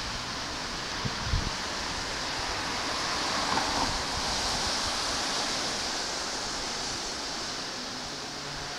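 Steady outdoor rushing noise, like wind, swelling a little about halfway through.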